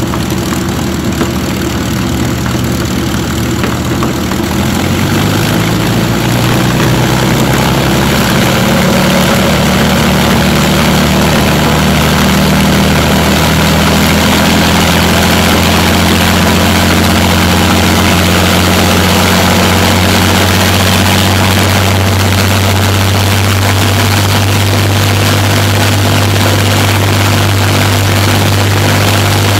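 Rolls-Royce Merlin V12 aero engine running on a test rig with its propeller turning. About five seconds in it picks up speed, its pitch rising and the sound getting louder, then it runs steadily at the higher revs.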